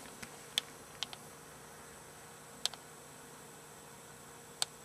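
Quiet steady hiss with a handful of faint, sharp clicks scattered irregularly through it.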